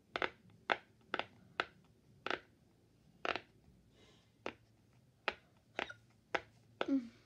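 Silicone pop-it fidget toy being pressed bubble by bubble on its side with the bigger bubbles: a dozen or so sharp pops, unevenly spaced, roughly two a second.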